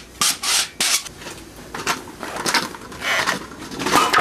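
Skateboard on a concrete floor: a series of short scraping, rolling noises from the wheels and deck, with a sharp clack near the end.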